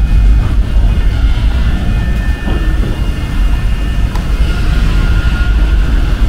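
Steady low roar of a paint spray booth's ventilation, even and unbroken.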